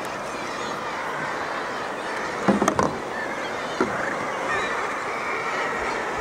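Steady wash of the sea with a guillemot colony calling from the cliff ledges. A few sharp knocks about two and a half seconds in and another near four seconds.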